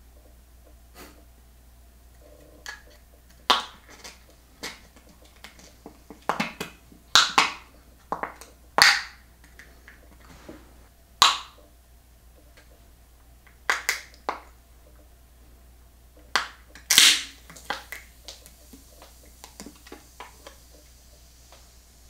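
Aluminium beer can being opened one-handed: a string of sharp, irregular clicks and scrapes as the fingers of the hand holding the can pry at its pull tab, with the longest and loudest burst about 17 seconds in.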